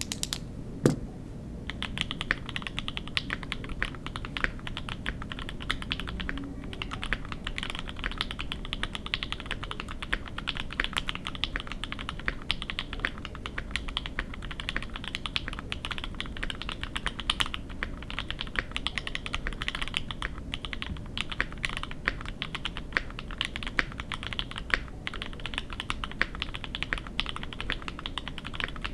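Rapid, continuous typing on a gasket-mounted KBDfans D65 mechanical keyboard with lubed Equalz C3 Tangerine v2 linear switches, an FR4 plate, plate and case foam, and GMK keycaps. One sharp key hit about a second in, then steady fast keystrokes.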